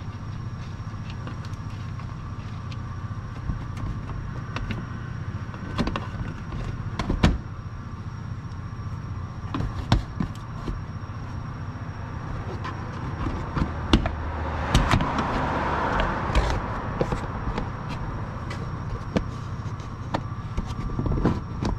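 A Honda CR-V's plastic inner-fender splash shield being worked free: scattered clicks and knocks as its retaining clips are pried out, then a scraping, rustling stretch about two-thirds of the way through as the panel is pulled away, over a steady low hum.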